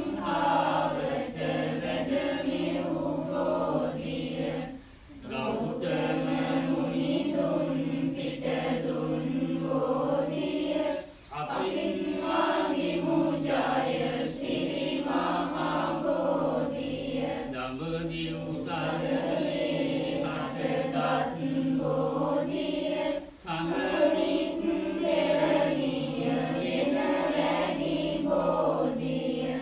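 A group of voices chanting a Sinhala Buddhist Bodhi pūjā verse in unison, with slow drawn-out lines and short breath pauses between them.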